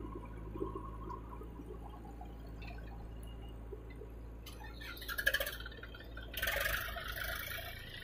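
Diesel engines of a backhoe loader and a farm tractor running with a steady low hum. In the second half a louder rattling, hissing noise comes in and swells as the loaded tractor pulls away.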